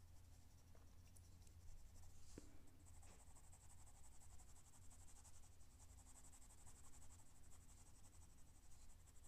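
Pencil shading on drawing paper: a faint, steady scratching of quick back-and-forth strokes, strongest from about three seconds in.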